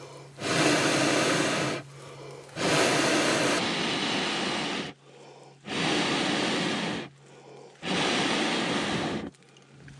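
Four long, forceful breaths blown out with short pauses between them.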